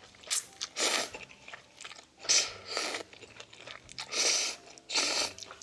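Noodles slurped from chopsticks, about six short, loud sucking slurps with quiet moments of chewing between them.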